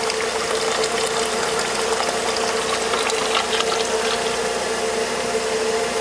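Dirty coolant water pouring steadily out of the cooling-system return hose into a plastic jug during a mains-water flush, over a constant hum from the idling engine.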